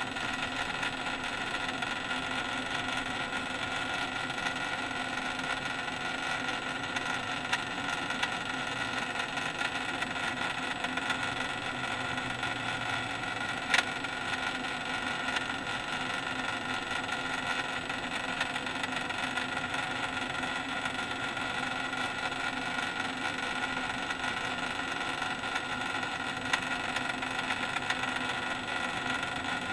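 Steady hum and whir of the small electric motor of a display turntable slowly rotating, with one sharp click a little before halfway.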